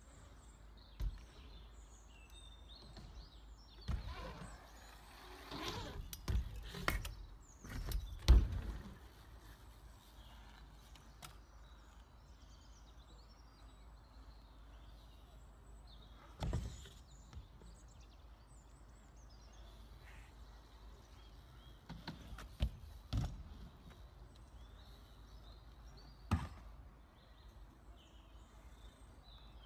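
A BMX bike rolling and landing on concrete skatepark ramps, heard at a distance over outdoor ambience: a stretch of tyre rush and clattering thuds about four to nine seconds in, the loudest thud near the end of it. After that come a few single knocks, with birds chirping faintly throughout.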